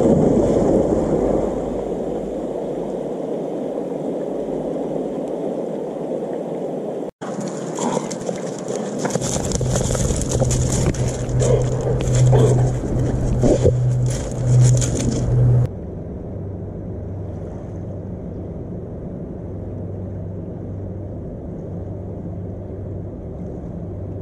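A black Labrador splashing into river water, then shoreline noise with a low steady hum that comes in about a third of the way through and pulses gently near the end.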